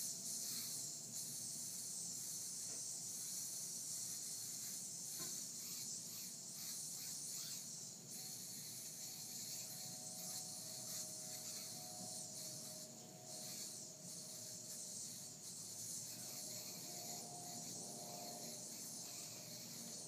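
Yo-yo spinning on its string during a trick: a steady high hiss of string friction with a faint whine and light clicks. The hiss cuts off suddenly near the end, when the yo-yo is caught.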